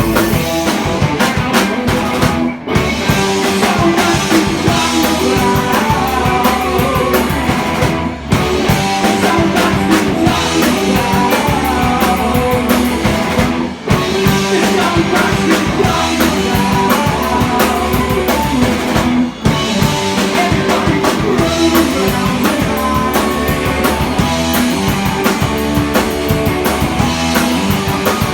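Rock band playing live, with drum kit, electric guitar and singing, recorded on a phone. The band cuts out for a split second four times, about every five and a half seconds.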